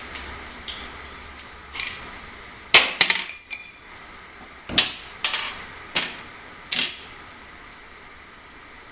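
Metal air rifle parts and tools being handled on a hard surface: a string of sharp knocks and clinks, loudest about three seconds in, where one rings briefly with a high metallic tone.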